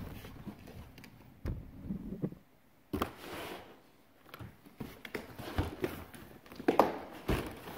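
Handling noise as a nylon webbing strap and its buckle are worked along the top edge of a plastic folding-boat hull: scattered clicks and knocks over light rustling. The sharpest knocks come about three seconds in and near the end.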